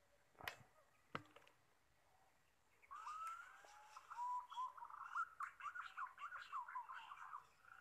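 Two sharp clicks about half a second apart, then from about three seconds in, a rapid run of whistled, warbling bird calls.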